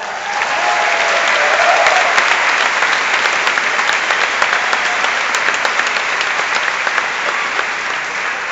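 Large audience applauding loudly, the clapping swelling in the first second or two and then slowly tapering off.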